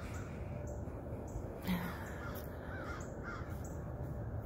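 A flock of crows flying overhead, cawing again and again, with a louder call under two seconds in. A steady low rumble runs underneath.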